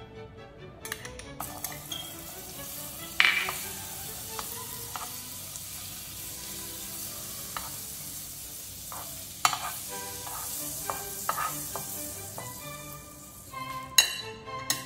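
Butter sizzling as it melts and foams in a hot non-stick frying pan. A metal spoon clinks a few times: sharply about three seconds in, again about nine seconds in, and twice near the end.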